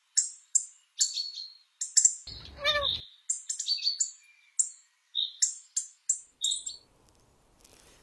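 Small birds chirping: a quick run of short, high chirps, with one longer falling call about two seconds in. The chirping stops about seven seconds in.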